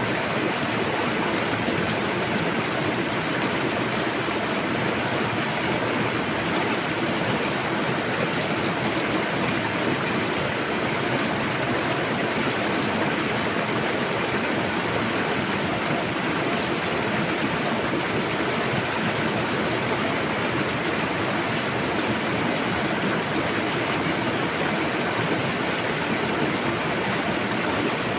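A fast-flowing river rushing steadily, an even hiss of running water with no breaks.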